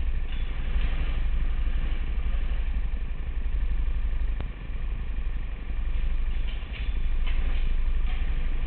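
A 200cc Honda single-cylinder kart engine idling with the kart at a standstill, picked up by a camera mounted on the kart as a steady, rapid low pulsing.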